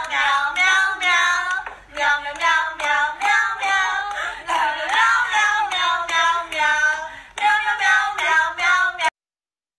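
A high voice singing a birthday song in four short phrases. It breaks off suddenly near the end.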